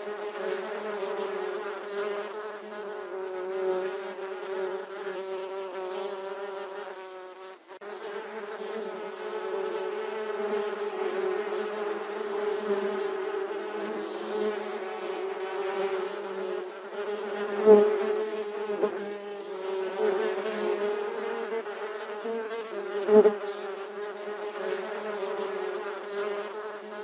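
A bee buzzing close to the microphone: a steady drone whose pitch wavers slightly. It drops out for a moment about seven and a half seconds in, and two sharp taps stand out, the loudest sounds, in the second half.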